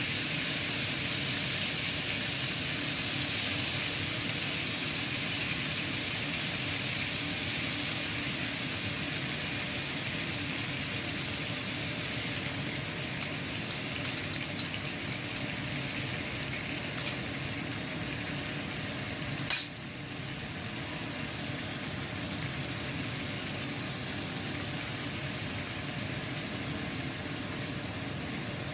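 Salmon pan-frying in butter, sizzling steadily. A few light clinks of a utensil against the pan come about halfway through, then one sharper knock, after which the sizzle is a little quieter.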